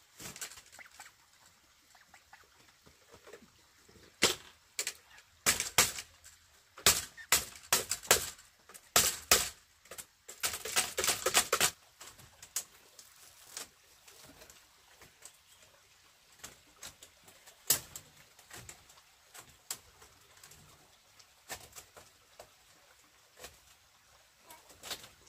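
Irregular sharp knocks and clacks of bamboo being handled and fitted into a wall, with a quick run of rapid cracking about ten seconds in, then sparser, fainter taps.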